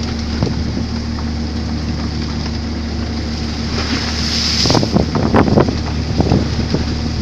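A boat engine running steadily, with wind buffeting the microphone. A cluster of sharp knocks and rattles comes a little before the end.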